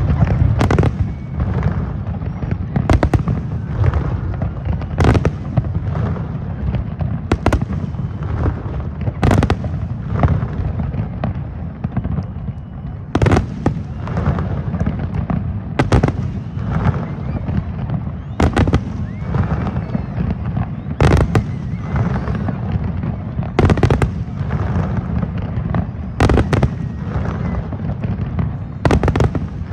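Fireworks display: sharp aerial shell bursts about every two to three seconds over a continuous low rumble of further explosions.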